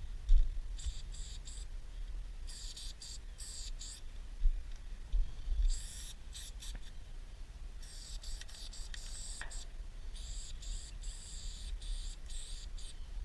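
Aerosol spray-paint can hissing in short bursts of a fraction of a second to two seconds each, about five times, stopping and starting sharply, over a low rumble.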